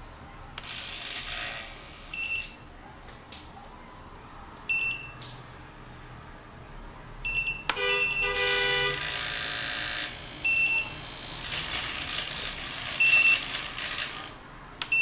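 Flysky 9x transmitter with ER9X firmware giving short high beeps and a short multi-tone alert as its three-position switch is clicked, while the model's aileron servos run slowly and whir as the flaperons droop and rise.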